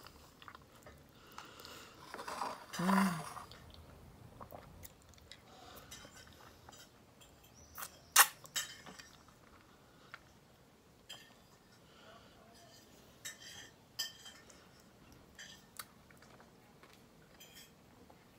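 Eating by hand from a plate: scattered small clicks and clinks of fingers and food against the plate, with mouth sounds of chewing and finger-sucking. A brief low vocal sound comes about three seconds in, and the loudest, sharpest click about eight seconds in.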